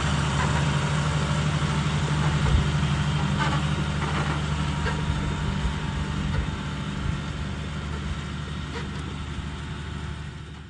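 Tractor engine running steadily as it tows an effluent spreader tanker spraying from its boom, growing fainter toward the end.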